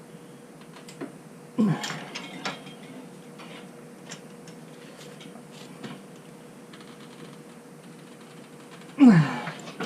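Hand work pulling a motorcycle tire off its rim on a manual tire-changing stand: scattered metal clicks and knocks, with two louder strained sounds that drop in pitch, about two seconds in and near the end.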